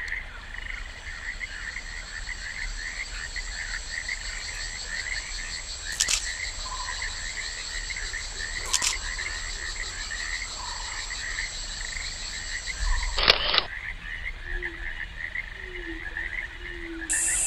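Rainforest frog chorus: many short chirps in rapid succession over a steady, high-pitched insect buzz. Two sharp clicks come about six and nine seconds in, and a louder one about thirteen seconds in. After that a lower call repeats several times.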